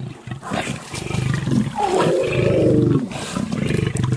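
Young lions growling and snarling at close quarters: rough, pulsing growls with several calls that slide down in pitch, loudest about two seconds in.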